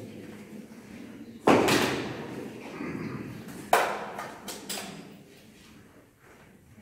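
Two loud thumps about two seconds apart, each ringing on briefly in a large hall, followed by a few lighter knocks.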